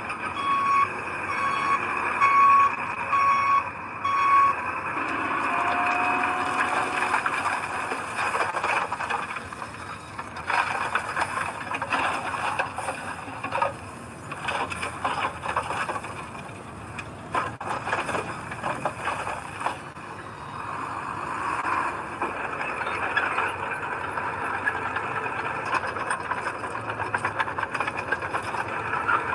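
Heavy earthmoving machinery at work: a reversing alarm beeps steadily for the first few seconds over a running diesel engine, then metallic clanks, rattles and a brief squeal follow while the engine keeps running.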